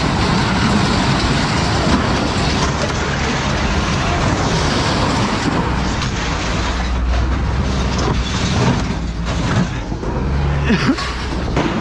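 Heavy rain falling steadily, with a vehicle engine running low underneath and a few knocks near the end.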